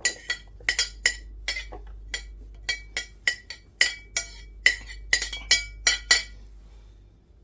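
A utensil clinking repeatedly against a bowl while food is mixed or tipped in: about twenty sharp, uneven knocks, each with a short bell-like ring.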